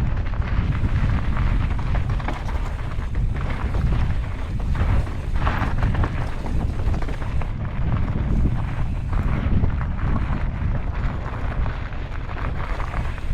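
Mountain bike ridden fast down a rough trail: a constant heavy rumble of wind buffeting the on-board camera microphone, with irregular crackling rattles from the bike and tyres over loose ground.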